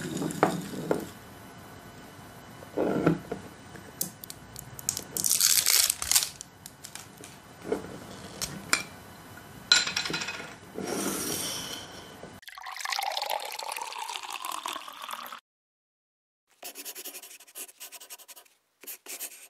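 Glass jar of dry roasted snack mix handled on a wooden table: irregular knocks and scrapes of the glass and short rustling hisses of the mix shifting inside. About twelve seconds in, a falling sound effect runs for about three seconds, and after a short silence a faint sound accompanies the logo animation.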